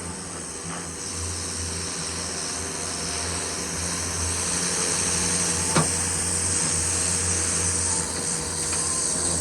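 Gas-engine pressure washer running steadily, its engine humming under the hiss of the water spray. A single sharp click about six seconds in.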